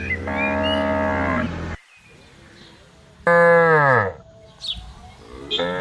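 Cows mooing: a long steady moo, then a shorter, louder one that falls in pitch at its end, and a third beginning near the end.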